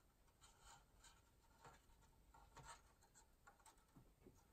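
Faint, scattered scratches and rustles of a model lamppost's thin wires and resistor being fed through a small drilled hole in a model road bridge deck.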